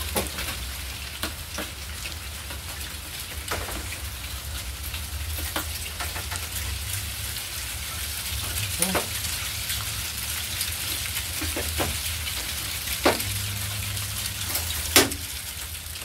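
Razor knife slitting and scraping the jacket of a flat drop fiber cable to free its copper tracer wire: scattered short scrapes and clicks over a steady hiss.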